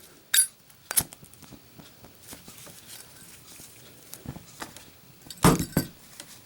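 Metal clicks and clinks of a Zippo lighter's steel case and insert being handled during a drop test. There is a sharp click just under half a second in, another about a second in, faint ticks between, and a louder double clink about five and a half seconds in.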